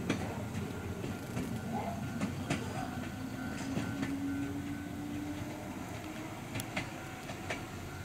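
Ohmi Railway 100-series electric train rolling slowly over the points into a siding: a low running rumble with irregular clicks of the wheels over the rail joints and points, slowly fading as it pulls away.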